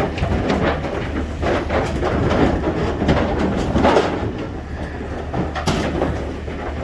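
Cattle hooves clattering and knocking irregularly on the metal floor and ramps of a cattle trailer as the animals unload, over a steady low rumble.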